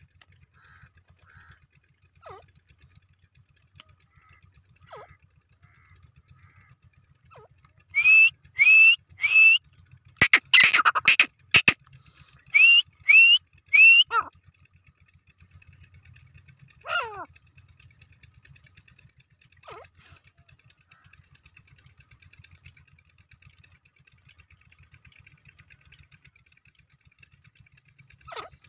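Grey francolin (teetar) calling loudly about eight seconds in: three rising notes, a harsh loud burst, then three more rising notes. Faint chirps and short descending whistles from other birds come before and after.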